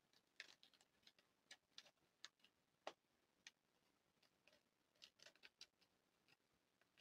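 Faint, irregular light clicks and ticks, at times several in quick succession: small pieces and plastic being handled with gloved fingers.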